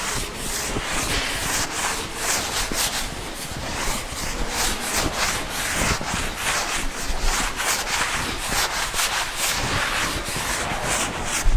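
A chalk blackboard being wiped clean with a cloth duster: a rapid, steady run of back-and-forth rubbing strokes across the board.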